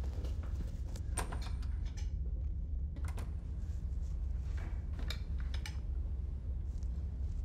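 Dishes and cutlery being handled: scattered light clinks and clicks, some ringing briefly, over a steady low hum.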